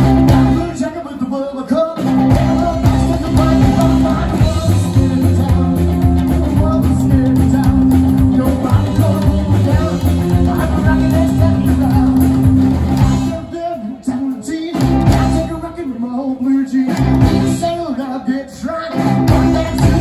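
Live rock and roll band playing: a man singing over upright double bass and electric guitars. The band drops out briefly twice a little past the middle.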